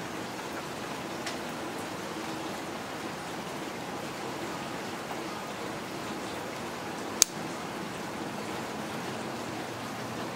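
Steady hiss with a faint low hum, broken by a single sharp click about seven seconds in.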